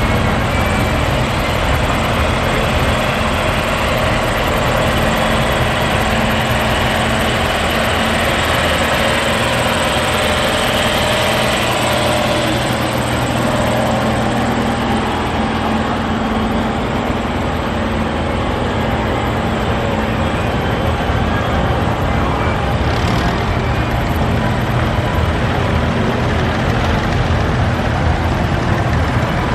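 Engines of several vintage tractors running steadily as they drive past one after another in a slow procession.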